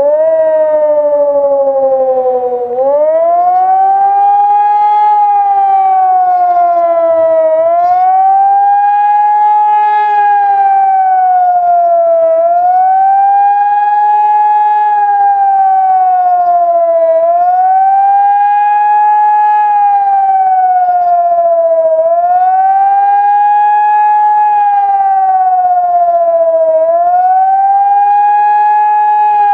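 Hörmann ECN 2400 electronic high-power siren starting abruptly and sounding a loud wailing tone that rises and falls in pitch about every five seconds. This is the German civil-defence 'warning of the population' signal.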